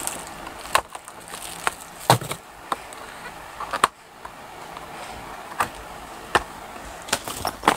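Irregular clicks and light knocks of a hard plastic waterproof bike phone case being handled and its hinged clear lid opened, over a faint steady hiss.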